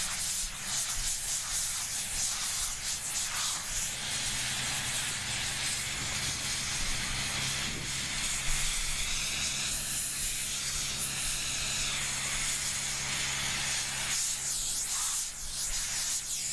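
Compressed-air wand blowing water out of a pavement saw cut to dry it, a continuous loud hiss that rises and falls slightly as the nozzle moves, with a steady low hum beneath.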